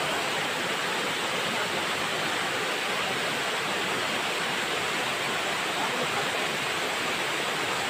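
A tiered waterfall pouring over rock steps into a pool, a steady, even rush of falling water.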